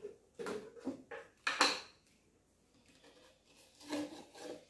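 A spoon and a plastic sugar jar being handled: a few short knocks and scrapes as sugar is scooped out, the sharpest about a second and a half in and a few more near the end.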